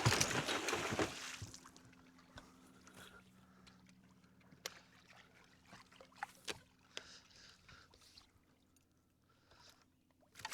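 A hooked musky splashing at the surface, loudest over the first second or so, then scattered small clicks and knocks over a faint steady hum.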